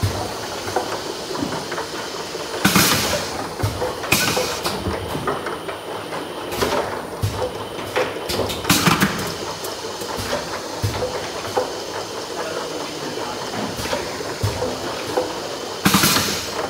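Bottle filling and capping line running: a steady machine clatter with plastic bottles knocking along the conveyor. Short hissing bursts of air come every few seconds.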